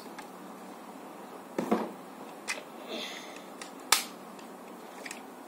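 Hard plastic parts of a Tobot toy robot being handled and fitted together: a handful of separate sharp clicks and knocks, the loudest about four seconds in.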